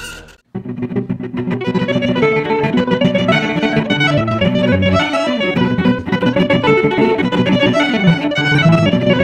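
Instrumental background music led by plucked guitar, starting after a brief break about half a second in.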